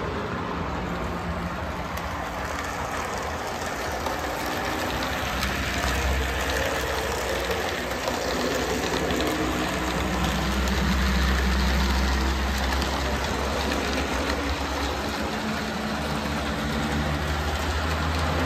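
HO scale model freight train running along the track, with the steady hum and rumble of its Athearn Blue Box GP9 locomotive. The rumble swells from about six seconds in and eases near the end.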